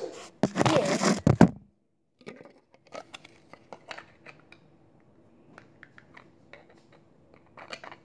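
Loud rustling and scraping of the phone being handled against its microphone, starting about half a second in and lasting about a second. Then a run of small scattered clicks and taps, typical of Lego bricks being handled and fitted together.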